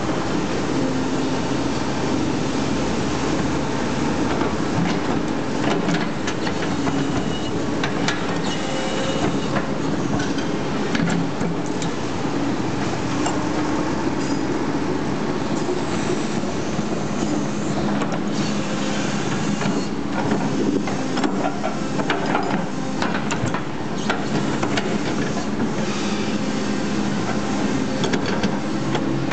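Doosan crawler excavator's diesel engine running steadily under load while the bucket scrapes and levels soil, with scattered knocks and clicks of the bucket teeth against earth and stones.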